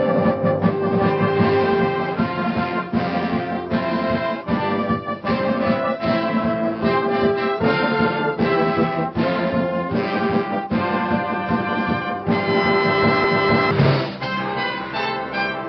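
Brass band playing loudly, with sustained chords and moving lines across the band. About fourteen seconds in there is a sudden crash, after which the band plays more quietly.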